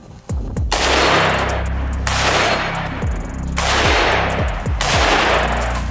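Rifle gunfire in rapid strings of shots, starting about a third of a second in, over background music with a heavy bass line.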